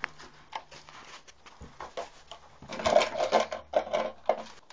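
Hands rummaging over the floor of a small rock cave while searching for a hidden geocache: irregular clicks, scrapes and rustles, sparse at first and busier and louder from about halfway in.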